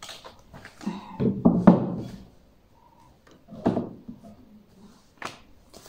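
Books being handled and set down on a bookshelf: irregular paper rustling with a few soft knocks and thumps.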